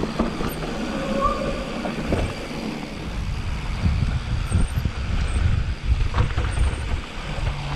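Mountain bike descending a rough trail: wind on the microphone with the rumble and rattle of the bike over bumps, and a brief squeak about a second in.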